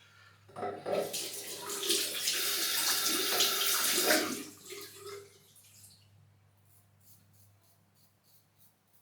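Tap running into a sink for about four and a half seconds, starting about half a second in and shutting off around five seconds in, followed by a few faint short scratching strokes.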